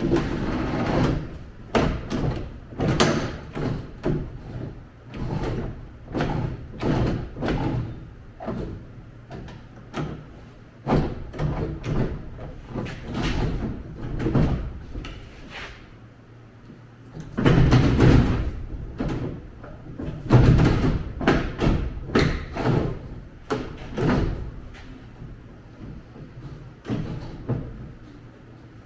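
A run of knocks, rattles and thuds from hands-on work inside an old steel pickup truck door, parts being pulled and the door's sheet metal rattling, with the loudest clatter about two-thirds of the way through.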